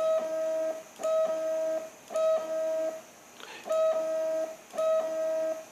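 3D printer stepper motors whining through repeated homing moves. Each cycle steps through steady tones an octave apart, a short high one, a longer middle one and a lower one, as the axis moves at different speeds. The cycle repeats about once a second, with a brief break about three seconds in.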